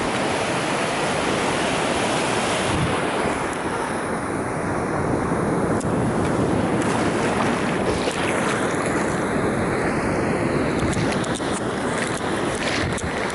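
Ocean surf washing onto a sandy beach in a steady rush that swells and eases, with wind buffeting the microphone.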